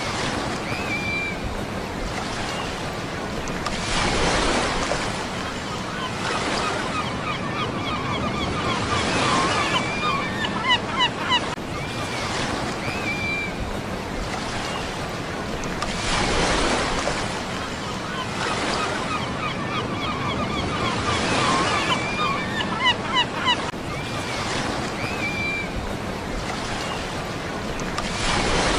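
Ocean surf: a steady wash of waves, with a wave breaking and swelling about every twelve seconds. Short clusters of high chirping calls come in between the swells. The same stretch of sound repeats, as in a loop.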